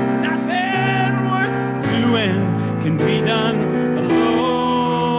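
Live music: a song played on piano, with a wavering sung or played melody line over sustained chords.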